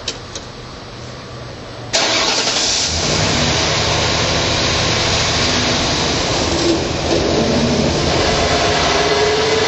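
A freshly built Yamaha 650 parallel-twin race engine firing up on its first start: a couple of small clicks, then the engine catches suddenly about two seconds in and keeps running steadily, the revs rising a little near the end.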